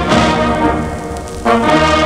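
Military brass band playing an instrumental march-hymn, with trombones and trumpets leading. The sound eases for a moment mid-way, then the full band comes back in strongly about one and a half seconds in.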